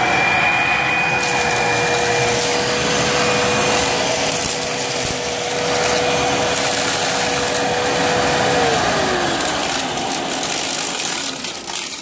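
Hoover upright vacuum cleaner running with a steady whine over loud airflow noise. About nine seconds in, the whine slides down in pitch while the rushing noise carries on, then fades near the end. The owner believes the vacuum has clogged.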